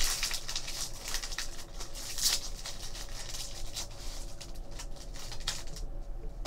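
Foil trading-card pack crinkling and rustling as it is torn open and the cards are slid out, a run of quick crackles that dies down near the end.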